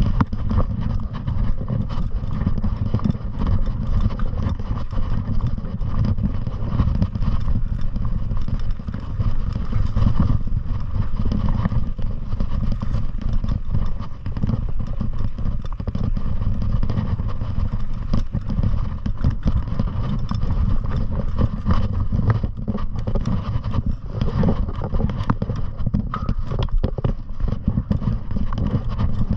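Riding noise on a fast downhill trail descent: a continuous low rumble of wind on the microphone, with rapid, irregular clatter and rattling from wheels and gear going over rough, rocky ground.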